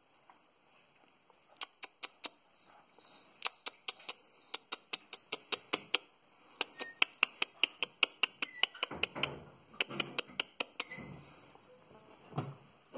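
A run of sharp clicks, several a second at uneven spacing, starting about a second and a half in and stopping about two seconds before the end.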